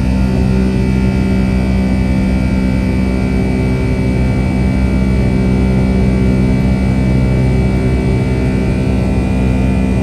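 Boeing 757-200's jet engines heard from inside the cabin: a loud, steady drone with a constant high whine.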